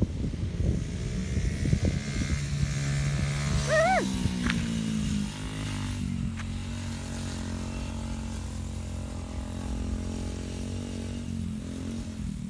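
Monkey bike's small engine running steadily as it is ridden around, its note shifting a little and easing off about five seconds in. A brief rising-and-falling call cuts across it about four seconds in.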